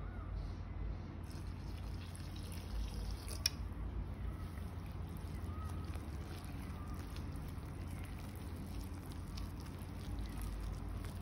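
Warm water poured from a jug into flour in a glass bowl, then a hand squeezing and mixing the wet flour into a shaggy bread dough, over a steady low hum. A single sharp click about three and a half seconds in.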